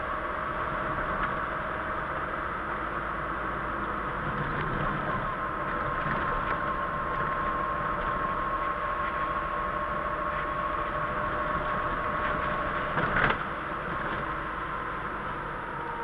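A car driving on a wet road, heard from inside the cabin: a steady engine and tyre drone with a faint whine. A brief knock about thirteen seconds in.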